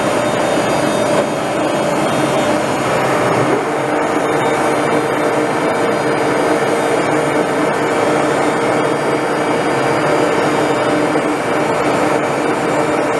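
Axelson 14x30 engine lathe running steadily under power: a steady mechanical whir with a hum whose tone shifts a little about three and a half seconds in.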